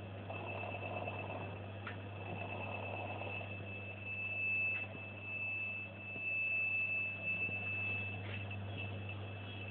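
Stepper motor of a home-built CNC machine running under its new driver electronics: a steady high whine that grows louder midway and eases off again, over a low electrical hum, with a few faint clicks.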